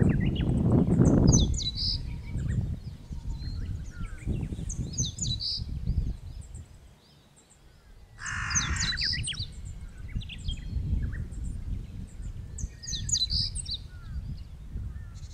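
Small birds chirping in several short bursts over a gusty low rumble of wind on the microphone. The wind is strongest in the first two seconds and briefly dies away past the middle. A single harsh call sounds about eight seconds in.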